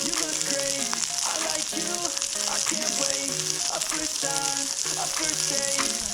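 Food frying in a hot pan: a steady sizzling hiss.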